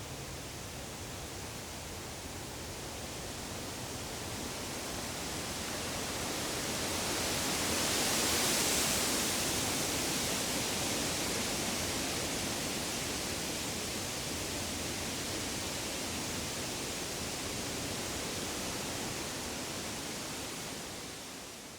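Woodland ambience: a steady rushing hiss that swells to its loudest about eight seconds in, eases a little, and begins to fade out near the end.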